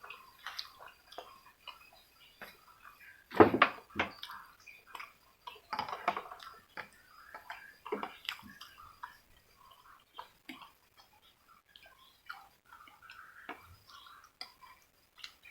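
Close-miked eating sounds from a man finishing a bowl of spicy instant noodles: wet slurps, smacks and chewing, with scattered small clicks. The loudest wet burst comes about three and a half seconds in.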